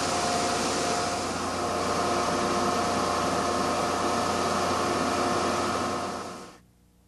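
Steady machine noise, a loud even hiss with a few faint held tones, that fades out quickly about six and a half seconds in.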